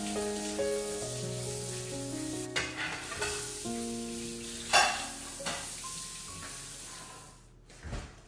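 Tap water running and splashing onto a plate in a stainless steel sink as dishes are rinsed, with a sharp clink about five seconds in; the water dies away near the end. Soft background music with held notes plays throughout.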